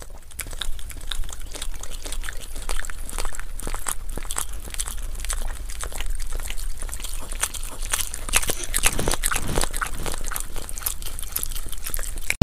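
A Shiba Inu puppy chewing and gnawing on a sausage: a steady run of irregular small clicks and crunches of teeth and mouth.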